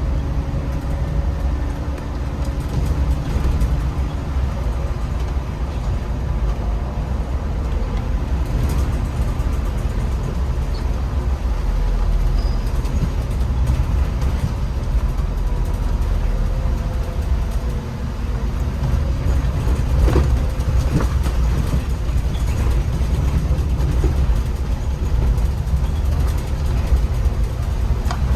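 MAN Lion's City articulated city bus driving: a steady low rumble of drivetrain and road noise, with faint whines that slowly shift in pitch.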